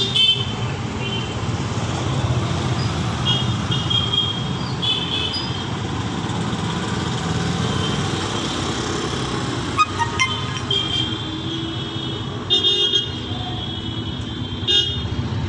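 Busy street traffic of scooters, motorcycles and auto-rickshaws running, with frequent short high-pitched horn beeps. The beeps come in clusters several times, some as quick double or triple toots.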